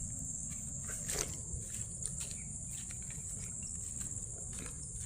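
A steady, high-pitched insect chorus of chirring crickets, with a low rumbling noise underneath and a faint knock about a second in.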